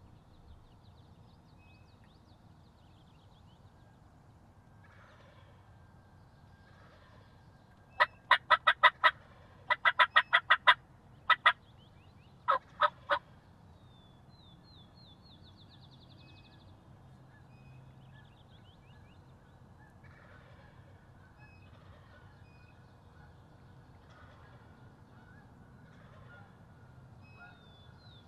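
Loud runs of turkey yelps, short sharp notes about four or five a second in several groups, from about 8 to 13 seconds in. Faint songbird chirps come and go over a quiet field background.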